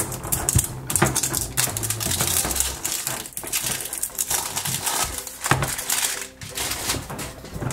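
Thin plastic shrink-wrap crinkling and crackling as it is peeled off a hard plastic toy container, with small knocks of the plastic being handled.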